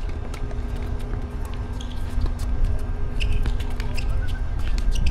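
Doubles tennis rally on a hard court: sharp pops of racket strings hitting the ball and the ball bouncing, repeated through the exchange, over a low rumble and a steady hum.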